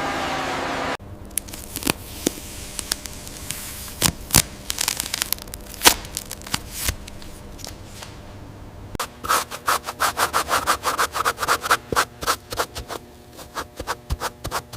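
A loud hiss cuts off about a second in. Then come hand scraping and rubbing strokes with sharp clicks, which about nine seconds in turn into fast repeated strokes, roughly four to five a second.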